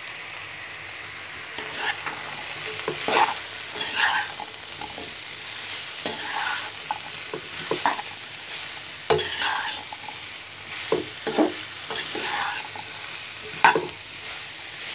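Taro stolons sizzling in hot oil in a pan as they are stirred with the spice powders, a steady frying hiss broken by irregular scraping strokes against the pan.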